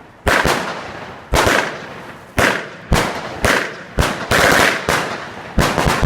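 Weco 'Painted Sky' 50-shot firework cake firing: about a dozen sharp bangs at uneven spacing, some in quick pairs, each trailing off in a fading hiss.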